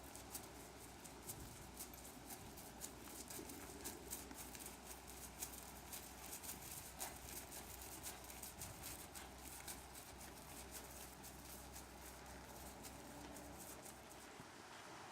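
Faint, irregular hoofbeats of a horse moving under a rider on soft arena footing, over a steady low hum.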